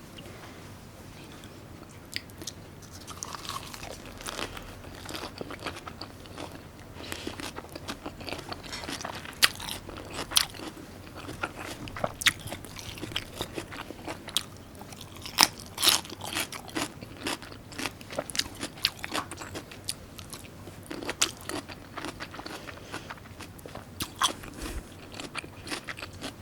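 Close-miked mouth sounds of a person eating: chewing with many sharp, crunchy bites and clicks throughout.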